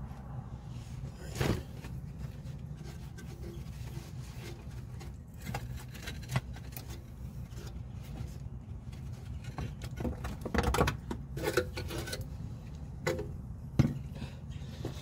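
Metal suspension parts knocking, clicking and scraping as a 2013 Subaru WRX's front strut assembly, with its coil spring, is handled and worked into the steering knuckle. The knocks are scattered, with a cluster about ten to eleven seconds in and the sharpest one near the end, over a steady low rumble.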